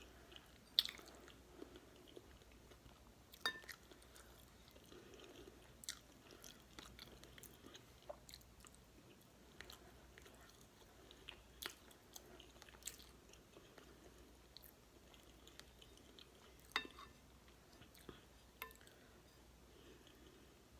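Soft mouth sounds of someone chewing a mouthful of beef stew and cornbread close to the microphone, broken by scattered sharp clicks.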